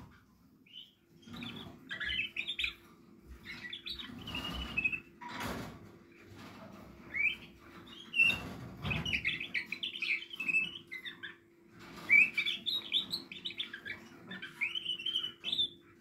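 Canaries in breeding cages chirping and twittering in short bursts, with a faint steady low hum underneath and a couple of knocks about five seconds in.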